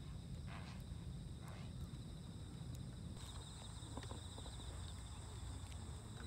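Harbour-side outdoor ambience at dawn: a steady low rumble with a thin high-pitched background tone, a few short bird calls in the first couple of seconds, and light footsteps around the middle.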